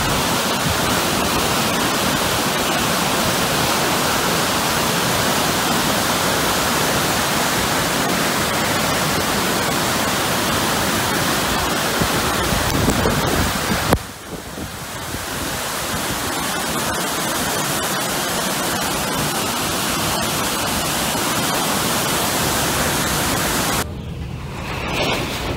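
Rushing floodwater and a waterfall in spate: a loud, steady, even rush. The sound breaks off and changes abruptly about fourteen seconds in and again near the end, where it drops to a lower rush.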